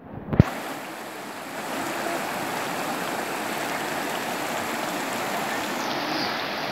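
Muddy floodwater rushing and churning over a road in standing waves: a steady, dense noise of fast-flowing water. A short knock sounds just after the start, and the water grows a little louder about two seconds in.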